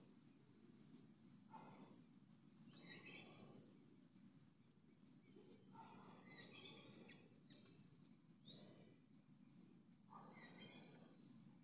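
Faint outdoor ambience: an insect calling in short, high-pitched pulses about twice a second, with scattered small-bird chirps, one a quick rising note a little past the middle, over steady low background noise.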